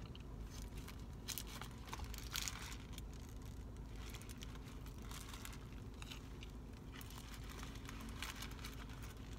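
Paper burger wrapper crinkling faintly in the hands in scattered short rustles, with quiet chewing, over a low steady hum.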